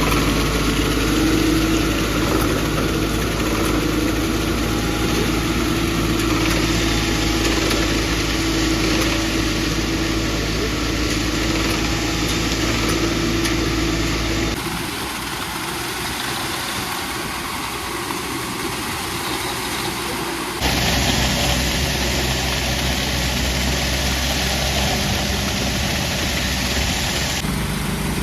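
An engine running steadily, with the sound changing abruptly about halfway through and again a few seconds later.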